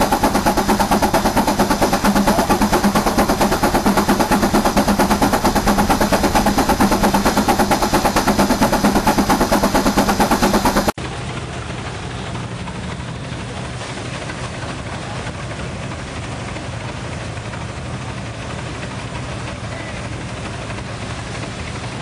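An engine running with a rapid, even pulsing for about half the time. Then an abrupt cut to a quieter, steadier engine running.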